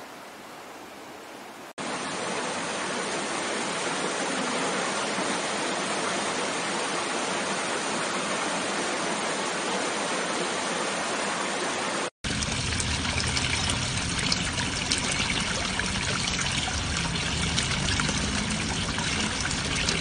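Waterfall water rushing steadily, with two abrupt changes in loudness and character where the recording cuts between falls. The last and loudest stretch, after a brief dropout, has more deep rumble and fine splashing.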